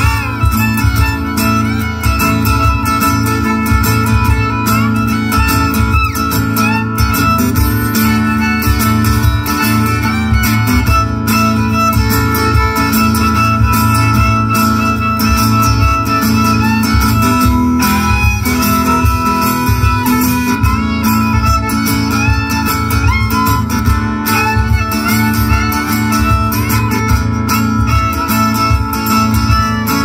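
Live acoustic guitar strumming with a fiddle bowing the melody over it, an instrumental stretch of the song.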